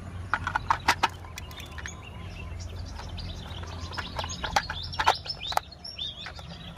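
Hard plastic toy car parts clicking and knocking as a clear plastic body shell is handled and fitted onto the gear chassis, sharpest about a second in. Small birds chirp in short, high calls throughout, most often in the second half.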